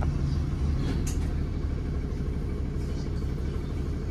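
City bus running, heard from inside the passenger cabin: a steady low engine and road rumble, with a short high hiss about a second in.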